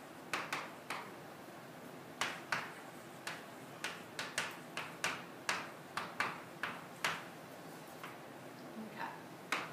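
Chalk writing on a chalkboard: an irregular run of sharp taps and short strokes, pausing for about a second and a half before two last taps near the end.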